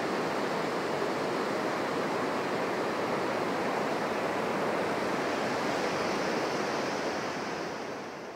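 Ocean surf breaking on a sandy beach as a continuous rush of waves, rough and heavy in the aftermath of a typhoon. It fades out near the end.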